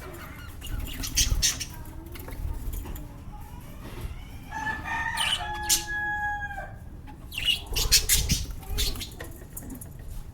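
A rooster crowing once, one drawn-out call of about two seconds near the middle. Sharp rustling or knocking noises come about a second in and again around eight seconds.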